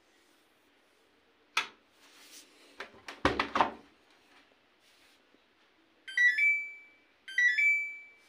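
A Samsung front-loading washing machine's door latch clicks open and the door is swung open with a few knocks and thuds. Then the machine plays the same short electronic jingle twice, each ending on a held beep, with its display reading "En" (end of cycle).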